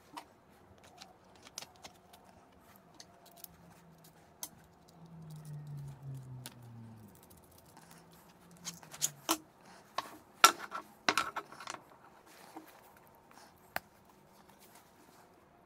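Small metal clicks and taps of steel washers and a nut being handled and fitted onto a metal rod through a stack of plywood discs, with a quick run of sharp clicks about two-thirds of the way in. A faint low hum bends downward in the middle.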